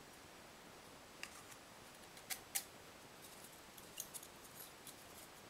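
A few short, sharp clicks and taps as a steel ball bearing and 3D-printed plastic parts of a spool holder are handled and fitted together by hand, the loudest a pair about two and a half seconds in, over faint room hiss.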